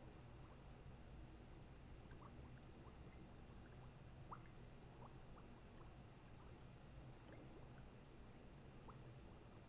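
Near silence: a low steady room hum with a few faint scattered ticks.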